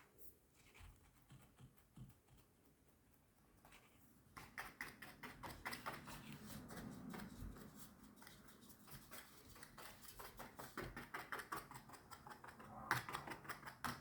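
Fork pricking pizza dough on a metal baking tray: quick, repeated light taps as the tines go through the dough, starting about four seconds in and running on until near the end.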